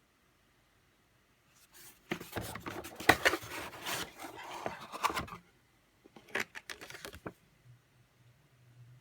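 Packaging being handled and opened by hand. About two seconds in comes a dense run of scraping, rustling and clicks lasting some three seconds, followed by a few sharper clicks.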